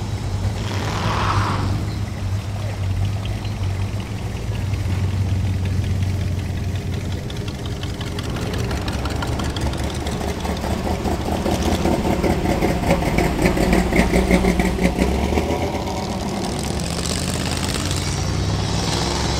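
Several classic cars and hot rods driving slowly past one after another, their engines running at a low idle. The engine sound grows louder from about ten seconds in as one car passes close and is loudest a few seconds later, then eases off.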